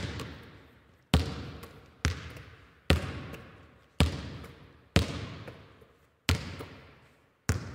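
A basketball bounced slowly, about eight bounces roughly a second apart, each with a long echo dying away after it.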